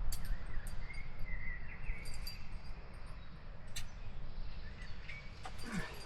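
Outdoor ambience: a low steady rumble with scattered light clicks, and a bird chirping briefly between about one and two and a half seconds in.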